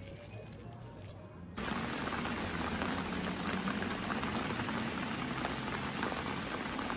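Steady rain falling, cutting in suddenly about a second and a half in.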